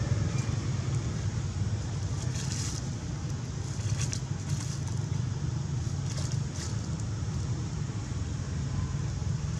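Dry leaf litter crackling a few times as a baby macaque's hand picks through it, over a steady low rumble.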